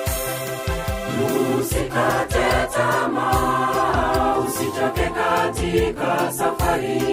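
Gospel choir singing in Swahili over backing music with a steady beat; the voices come in about a second in.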